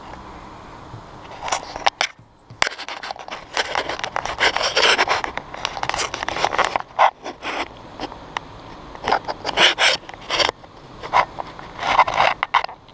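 A camera scraping and rubbing against the rough masonry rim of a hole in a wall, in irregular scrapes starting about one and a half seconds in.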